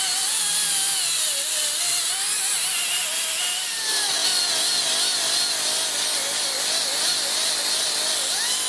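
A die grinder with a 3M bristle disc spinning against an outboard's steel driveshaft, scrubbing off exhaust carbon. It makes a steady high whine whose pitch wavers as the disc bears on the shaft, over a hiss.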